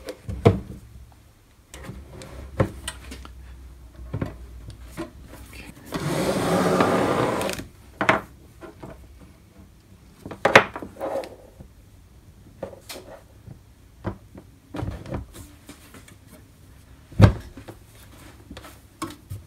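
Knocks and clicks as small feet are pressed onto the corners of a benchtop metal bandsaw's base and the machine is shifted about on a wooden table, with a noisy rasp lasting about two seconds about six seconds in and a heavier knock near the end.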